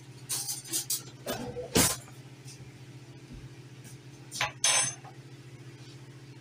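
Scattered knocks and clinks of a metal spoon, a knife and dishes being handled and set down on a kitchen counter: a sharp knock about two seconds in, and a ringing metal clink near the end. A steady low hum runs underneath.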